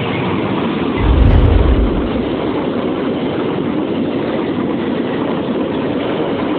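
Diesel-hauled passenger train, KA 239 Pasundan, running past at speed: a loud, steady rush of wheels and carriages. A deep low rumble swells about a second in and fades within a second.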